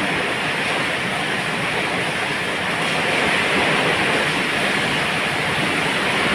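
Heavy rain pouring down in strong wind: a loud, steady rushing hiss.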